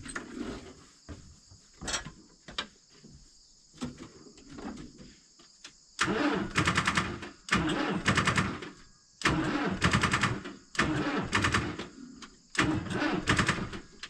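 John Deere 2755 tractor's diesel engine being cranked by its starter in about five short bursts of roughly a second each, starting about six seconds in, without catching: the batteries are too flat to start it.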